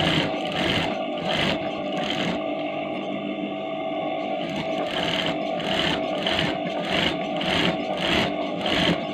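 Sewing machine running steadily as it stitches a fabric strip, with a regular pulse about twice a second that drops away for a couple of seconds in the middle.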